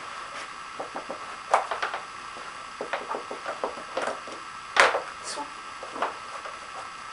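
Plastic clicks and knocks from a Nina Ottosson Dog Twister puzzle toy as a dog works at its sliders and compartments. The clicks come irregularly, with a louder knock about five seconds in.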